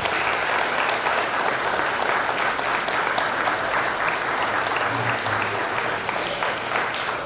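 A roomful of people applauding, starting abruptly and holding steady.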